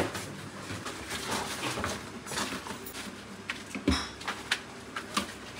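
A plastic shelf-liner sheet being laid and pressed onto the lower shelf of a metal rack: rustling with scattered taps and knocks, the loudest knock about four seconds in.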